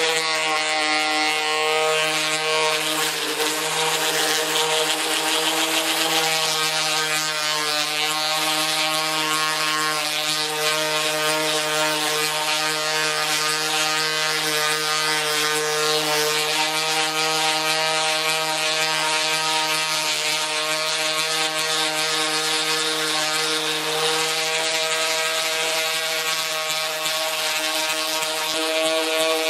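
Electric random orbital sander running steadily on a car's steel roof and hood panel: a constant motor hum with the hiss of the sanding disc on the metal as the paint is taken down to bare steel.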